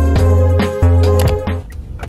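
Background music with a heavy bass line and a steady beat, thinning out briefly near the end.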